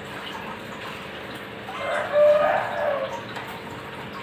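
A rooster crowing once: a single harsh call, about a second and a half long, loudest near its middle.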